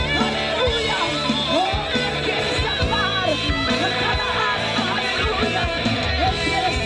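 A live worship band playing an instrumental passage between sung verses, with guitar, bass and steady drums.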